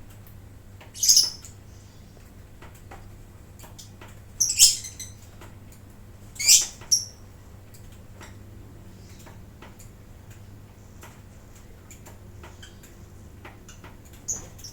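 Lovebirds giving short, shrill squawking calls: loud bursts about a second in, around four and a half seconds and at six and a half seconds, and a brief one near the end. Faint scattered clicks and a steady low hum run underneath.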